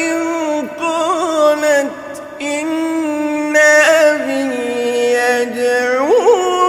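A man reciting the Quran in melodic tajweed style, holding long drawn-out vowels with ornamented turns in pitch, broken by short pauses.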